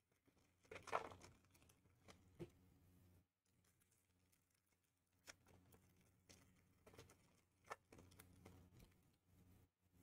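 Near silence with faint handling of trading-card packs and cards: a few light clicks and brief crinkles of pack wrappers, the loudest about a second in, over a faint low hum.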